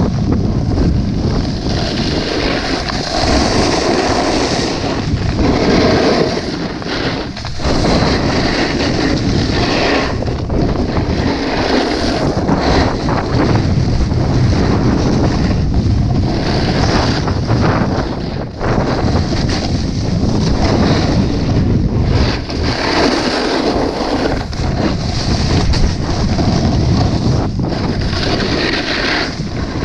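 Wind rushing over an action camera's microphone mixed with a snowboard scraping and carving over hard-packed snow. The loud, steady rush swells and eases in waves every few seconds.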